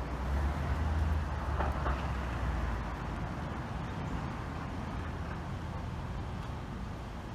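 A vehicle's low engine rumble, strongest for the first three seconds and then fading as it moves off. Beneath it runs a steady mechanical drone from a portable refrigeration unit, the noise that the neighbours complain of.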